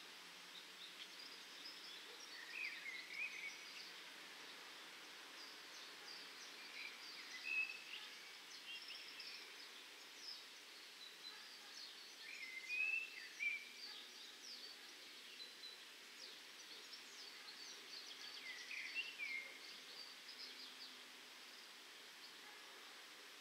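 Small birds singing: short chirping phrases repeat every few seconds, with many quick high chirps among them, over a faint steady outdoor hiss.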